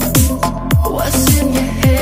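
Background music with a steady beat: deep bass hits that slide down in pitch a little under twice a second, under held synth notes and hi-hat ticks.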